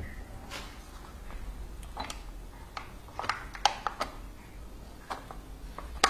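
Irregular clicks and light knocks of a glass jar being handled against the metal frame under a small oil expeller press, over a low steady hum. The sharpest knocks come in a cluster about three to four seconds in and again at the very end.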